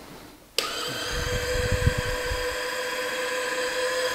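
Small geared electric motor of a peristaltic oil pump switched on about half a second in and running with a steady whine, which the owner thinks comes from the pump's reduction gearbox.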